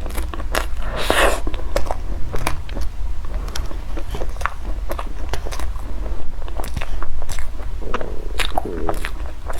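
Close-miked eating: bites and chewing with many sharp crunchy clicks, a longer crunch about a second in, over a steady low hum.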